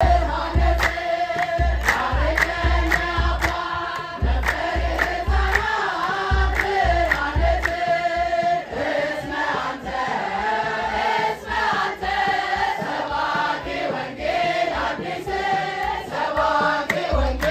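A group of voices singing together over a deep drum beat and sharp regular strikes in a steady rhythm. The deep drum drops out about halfway through and comes back near the end.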